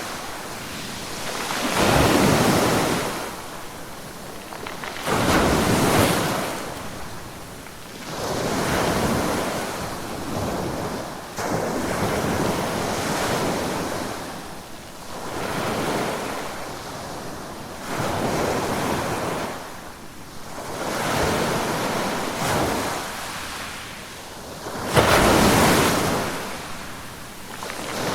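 Ocean waves breaking and washing on a shore, one surge swelling and ebbing every three to four seconds.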